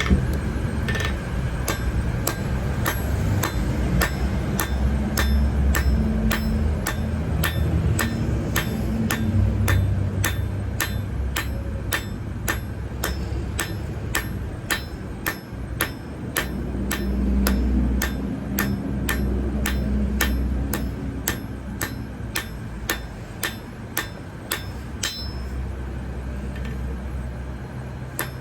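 Blacksmith's hammer striking metal on an anvil in a steady rhythm, about two ringing blows a second, over a low rumble.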